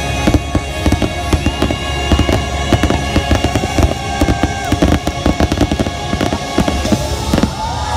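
Rapid barrage of aerial firework shells bursting, several sharp bangs a second over a low rumble, with the show's music playing underneath.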